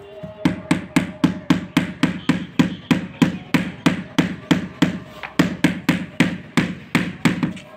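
Hand mallet tapping a large-format 60×120 cm porcelain floor tile, about three steady strikes a second, to bed it into the mortar and level it with its neighbours.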